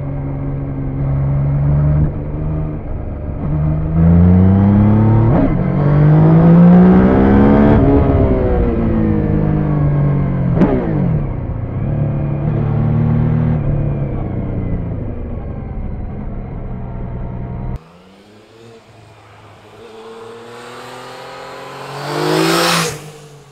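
Yamaha XSR 900's 847 cc inline three-cylinder engine on its stock exhaust, heard from on board while riding: the engine note rises and falls as it accelerates and shifts gear, with sharp drops in pitch about five and about ten and a half seconds in. Then the bike is heard from the roadside, approaching and passing close by near the end.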